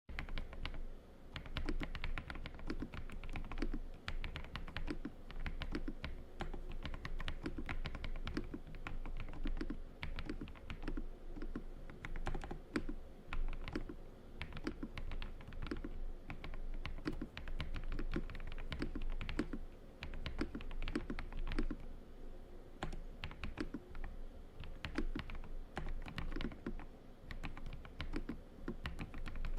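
Continuous fast typing on an AULA F108 Pro full-size mechanical keyboard: a steady stream of key clicks, several strokes a second, without pause.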